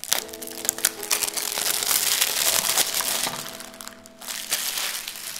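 Glossy plastic wrapping on a DVD case crinkling and crackling as the case is handled, turned over and laid flat, loudest about two to three seconds in and dying down near the end. A few soft, sustained background music notes run underneath.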